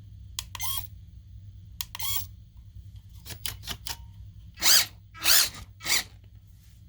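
Pop-up headlight mechanism of a 1/18-scale RC drift car clicking and whirring in short bursts, with three louder bursts near the end, as the headlights fail to fold and unfold; the owner thinks something inside broke or came loose.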